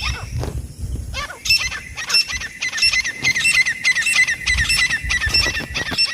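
Francolin (teetar) calling: a rapid run of harsh, repeated pitched notes, about three a second, starting about a second in.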